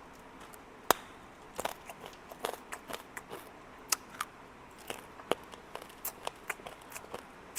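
Close-miked sharp crackles and clicks of sweet candy being handled and eaten: an irregular series of crisp snaps, roughly one or two a second, the loudest about a second in.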